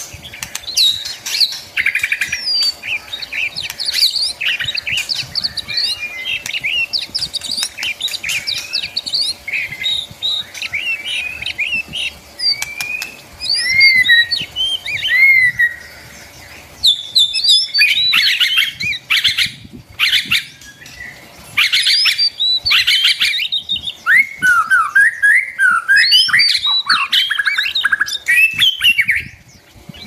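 Several caged songbirds chirping and singing at once, a dense run of overlapping short whistled phrases and chirps, with a brief lull a little past halfway.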